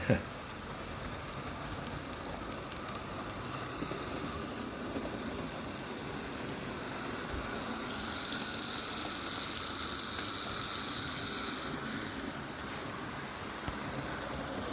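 Model railway locomotive running on track: a steady electric-motor hum with wheel noise on the rails, swelling a little in the middle.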